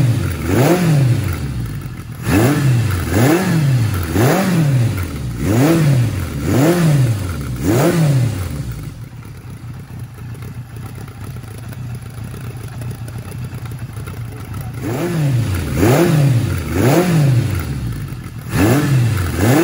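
1977 Kawasaki KZ1000's air-cooled inline-four engine running with its carburetors freshly adjusted, revved in quick throttle blips about once a second. It settles to a steady idle for about six seconds in the middle, then is blipped again near the end.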